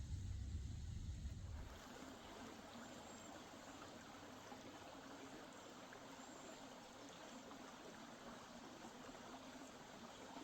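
Creek water flowing steadily, a soft, even rush. A low rumble is under it for about the first two seconds.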